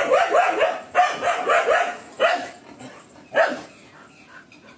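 Dog barking in quick strings of short barks, then two single barks, falling quiet near the end.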